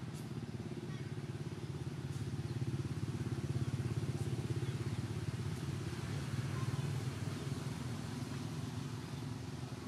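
An engine running at a steady low pitch, growing louder through the middle seconds and easing off again.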